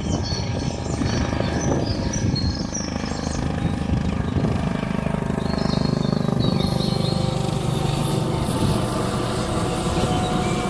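A motor vehicle running past, a steady rumble that grows louder about halfway through, with birds chirping over it.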